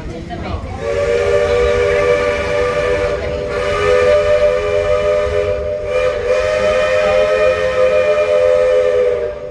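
Steam locomotive whistle blown in a long, loud chord of several close notes. It sounds for about eight seconds, with two brief dips partway through.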